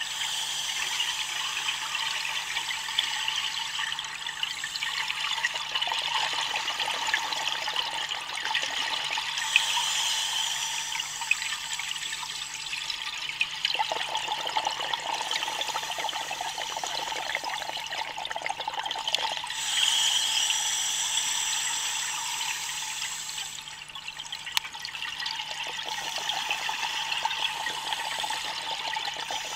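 Scuba diver's regulator breathing heard underwater: a continuous rush and gurgle of exhaust bubbles that swells twice, about ten seconds apart.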